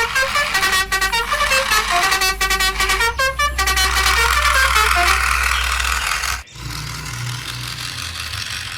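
A quick electronic tune of short stepping notes over a steady low hum, like a toy vehicle's built-in melody. It cuts off sharply about six and a half seconds in, and a steady low engine-like hum follows.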